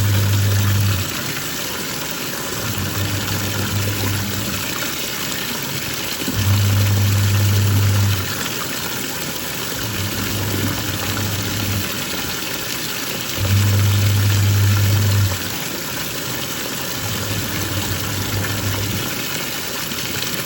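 Twin-tub washing machine's wash tub agitating: the motor hums for about two seconds, stops briefly, then runs again, with alternately louder and softer runs as the pulsator reverses direction. A steady swish of water and clothes churning underlies it.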